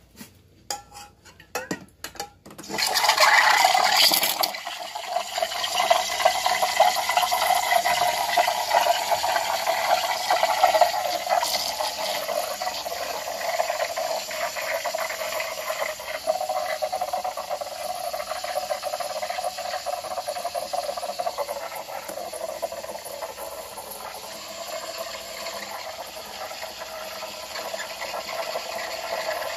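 A few clicks as the espresso machine's selector knob is turned, then about three seconds in the steam wand starts and hisses steadily with a watery gurgle as it froths milk in a metal pot.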